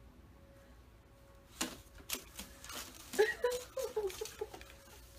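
Horizontal window blind slats rattling and clicking as a cat bats and pulls at them, a run of sharp clatters starting about a second and a half in.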